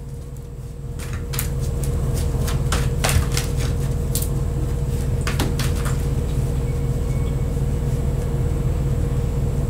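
A deck of tarot cards shuffled by hand, a run of soft clicks and flicks over the first six seconds or so. A steady low hum runs underneath and grows louder about a second in.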